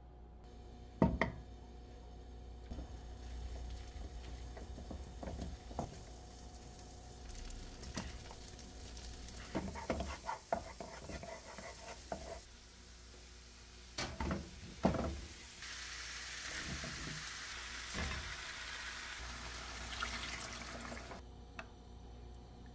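Wooden spatula knocking and scraping a few times against cookware, then minced garlic sizzling in oil in a frying pan for several seconds in the second half before the sizzle cuts off suddenly.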